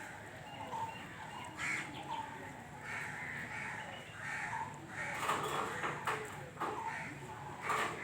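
Birds calling repeatedly, about six short calls spaced roughly a second apart, over a steady outdoor background.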